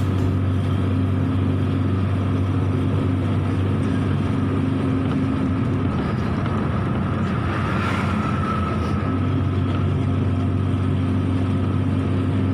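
Truck engine running steadily with tyre and road noise while driving at a constant speed; a low, even drone with no gear changes.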